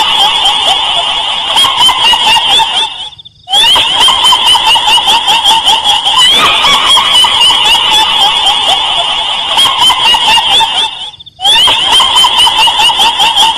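A rapid, high chattering call, billed as a spooky ghostly laugh, repeated as a loop that breaks off briefly twice, about three seconds in and near the end.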